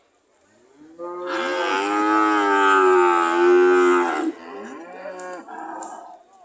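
A cow mooing: one long, loud call starting about a second in and lasting some three seconds, followed by fainter, rougher calls.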